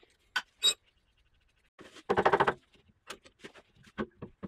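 Socket ratchet clicking as bolts are undone on the milling machine's head: a couple of sharp metal clicks, then a half-second run of rapid ratchet clicks about two seconds in, followed by scattered light ticks.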